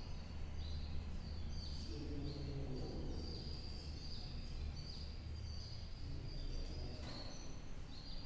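Chalk writing on a blackboard: a run of short, faint, high-pitched scratching strokes over a low steady hum.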